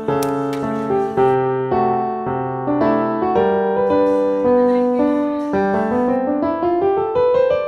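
Background piano music: a melody of struck notes, each ringing and fading, with a run of notes climbing in pitch near the end.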